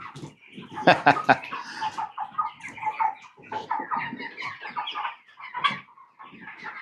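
A flock of chickens clucking continuously, many short overlapping calls, with a few sharp knocks about a second in.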